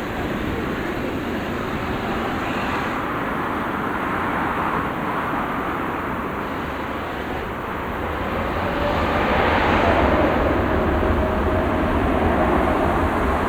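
Twin-engine jet airliner's engines at takeoff thrust during the takeoff run: a steady, loud rushing noise that swells about two-thirds of the way through, with a faint steady whine in the later part.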